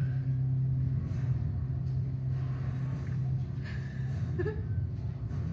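A steady low hum, with faint small sounds over it.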